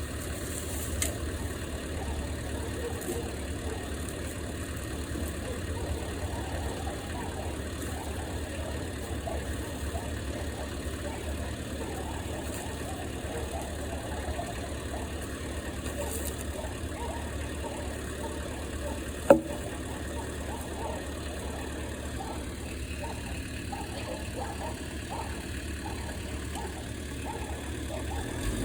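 A machine's engine running steadily at a low idle-like rumble, with a single sharp knock about two-thirds of the way through.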